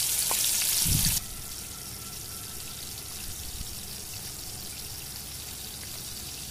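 Bitter gourd seeds sizzling in hot mustard oil in a steel kadhai, stirred with a wooden spatula. The sizzle drops abruptly to a quieter, steady hiss about a second in.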